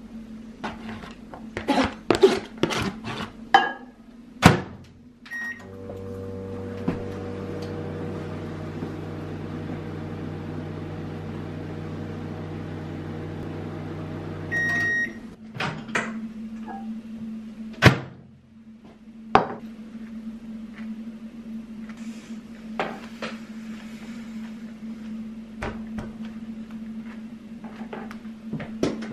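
Microwave oven reheating food: dish and door clatter, a beep as it is started, then the oven running with a steady hum for about nine seconds, cut off with beeps. The door is then opened and the dish taken out with a few sharp knocks.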